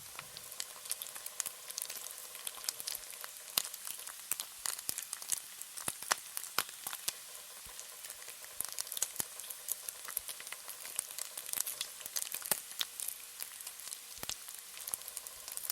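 Bacon frying: a steady high sizzle with many sharp crackles and pops scattered irregularly throughout.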